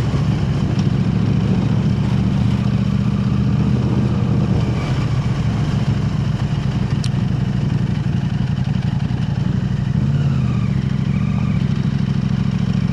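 KTM 890 Adventure R parallel-twin engine, breathing through an aftermarket Arrow Race-Tech exhaust, running steadily at low revs.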